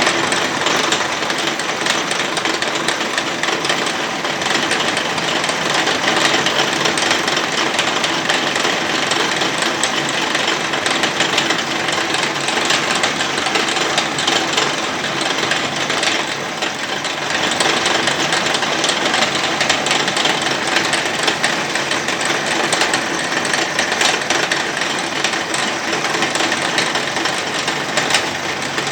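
A machine tool running steadily with a dense mechanical rattle.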